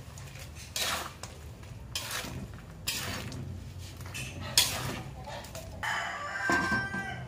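Metal spatula scraping and knocking against a large aluminium wok while stirring chunky pork stew, a handful of sharp scrapes a second or so apart. Near the end a metal lid is lowered onto the wok.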